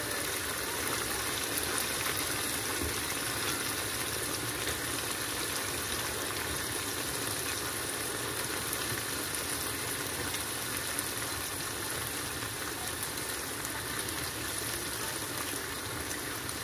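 Tomato and pepper sauce bubbling and sizzling steadily in a wok.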